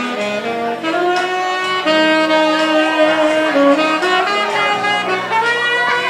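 Saxophone playing a slow, jazzy melody with long held notes.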